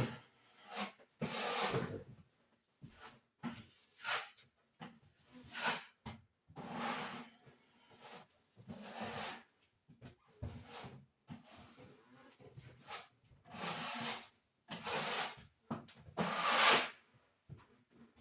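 Scrubbing a painted wall by hand: a run of irregular rubbing strokes, each lasting from a fraction of a second to about a second.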